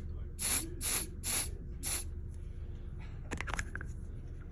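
Aerosol can of smoke-detector test smoke sprayed in four short hissing bursts about half a second apart, dosing the smoke detector built into a fire door closer to set it off. A few faint clicks follow about three and a half seconds in.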